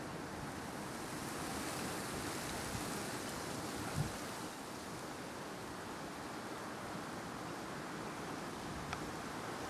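Wind blowing outdoors and buffeting the microphone: a steady noisy rush that swells for a couple of seconds, with a brief low thump about four seconds in.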